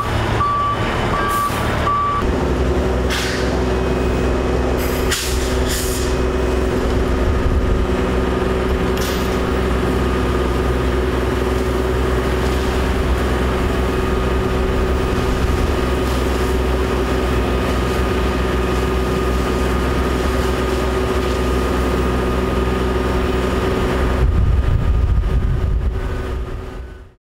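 A fire truck's backup beeper beeping for about two seconds, then a heavy truck engine running steadily at a constant speed. A few short air hisses sound a few seconds in, and the engine grows louder near the end before fading out.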